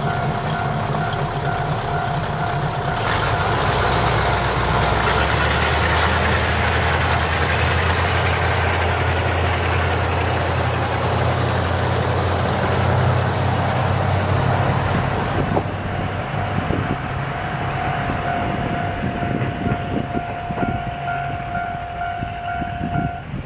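Two-car diesel railcar train, KiHa 2005 and KiHa 222, pulling away from a station: the engines throttle up about three seconds in and run under load, then the sound fades after about fifteen seconds as the train moves off. A steady high warning tone also sounds and stops just before the end.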